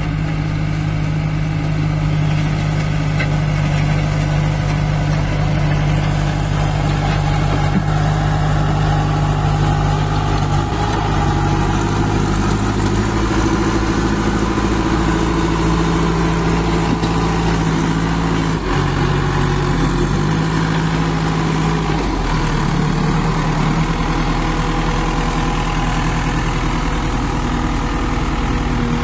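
JCB 2DX backhoe loader's Kirloskar diesel engine running, its pitch stepping down and back up a few times as the engine speed changes.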